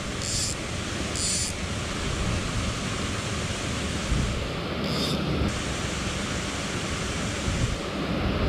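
Steady rush of water from a small waterfall pouring over a low weir into a stream pool, with three brief high hissing swishes in the first five seconds.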